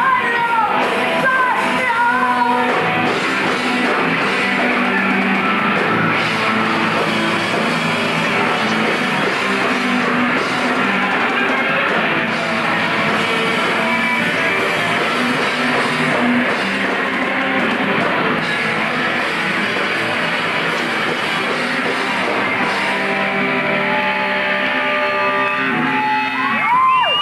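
Punk rock band playing live: distorted electric guitar, bass guitar and drums with a woman singing over them, loud and continuous.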